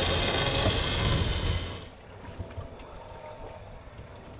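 Steady rush of wind and water over a low boat-engine hum. It cuts off abruptly about two seconds in, leaving a much quieter stretch with a few faint clicks.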